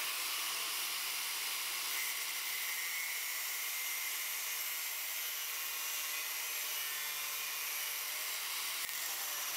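Angle grinder with a cut-off disc running at a steady pitch while it cuts through a steel bar, with a steady hiss over it.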